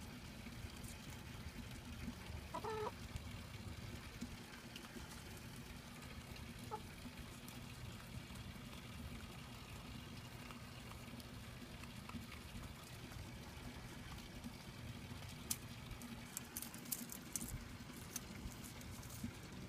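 Chickens clucking now and then, faintly: a short call about three seconds in and a fainter one near seven seconds, over a steady low background rumble. A few light clicks near the end.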